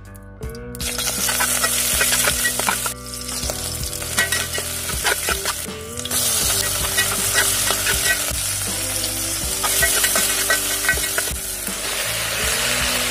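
Sliced onions and green chillies sizzling in hot oil in a metal pot, starting about half a second in, while a spatula stirs them with repeated scrapes and clicks against the pot.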